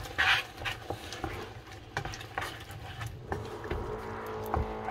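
Wooden spatula stirring and scraping a saucy shrimp-and-squid stir-fry in a non-stick pan, with irregular scrapes and light knocks; the loudest scrape comes just after the start. A steady low hum joins about three seconds in.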